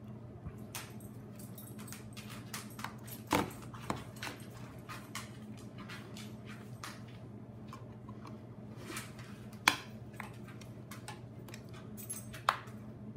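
Screwdriver and box-cutter blade prying the plastic case of an Amazon Kindle apart at its glued seam: a run of small clicks, scrapes and plastic snaps, with a few sharper snaps, one about three seconds in, one near ten seconds and one near the end.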